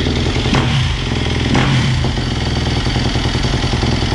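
2018 Yamaha YZ250F dirt bike's single-cylinder four-stroke engine running just after being kick-started. The throttle is blipped twice in the first two seconds, then the engine settles to a steady fast idle.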